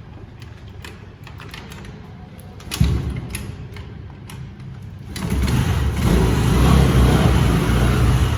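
Scooty scooter's small engine being started again: a few light clicks, a brief low surge about three seconds in that dies away, then about two seconds later the engine catches and keeps running loudly.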